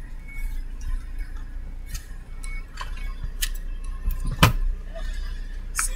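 Scattered light clicks and knocks, with one louder knock about four and a half seconds in, over a steady low hum.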